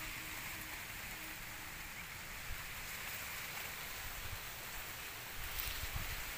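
Steady outdoor background hiss with soft low rumbles, a little louder near the end.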